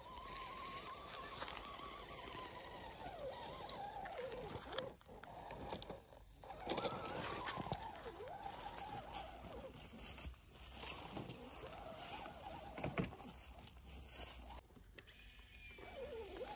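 RC crawler truck's electric motor and gearbox whining, rising and falling in pitch with the throttle, over the crunch and scrape of its tyres on dry leaves, twigs and grass.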